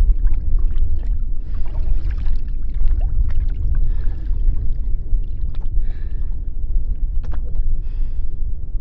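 Water lapping and sloshing around a small fishing boat over a steady low rumble, with a few faint splashes and clicks.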